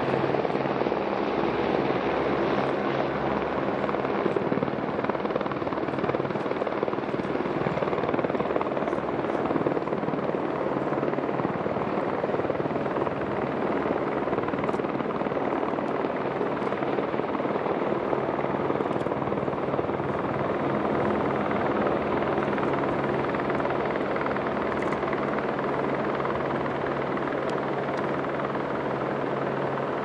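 Helicopter running steadily: a constant engine and rotor noise with a steady low hum underneath, unchanging in level.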